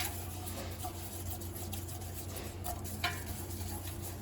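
Flat silicone whisk stirring a flour-and-oil roux in a pot: faint scraping with a light tap about three seconds in, over a steady low hum.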